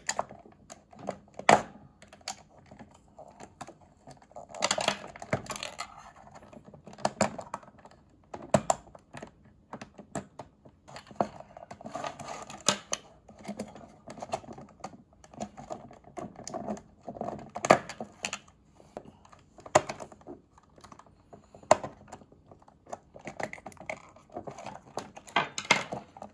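Plastic pegs of a Haslab cyclotron lid being scraped off and its LED circuit boards pried loose: irregular sharp plastic clicks and short scrapes.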